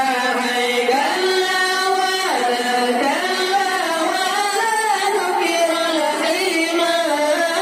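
Dikè Maulid: a group of young men chanting Acehnese devotional zikir in unison, with long held notes that slide up and down in pitch.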